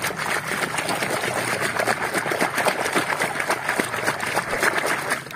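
Water splashing and sloshing continuously as a hand churns and scrubs a toy truck in a tub of muddy water.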